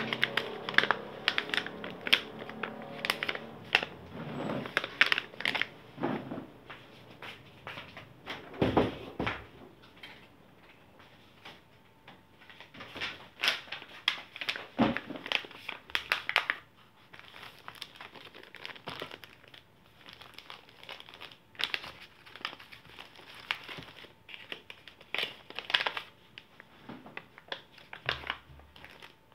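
Packaging pouches crinkling and rustling as they are handled and opened, in irregular bursts of short crackles. There are quieter stretches about a third of the way in and again past the middle.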